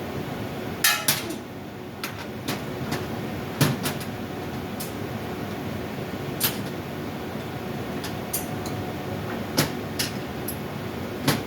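Scattered sharp metal knocks and clicks from tools and parts being handled while an air-handling-unit blower is fitted, about a dozen in all, over a steady machinery hum.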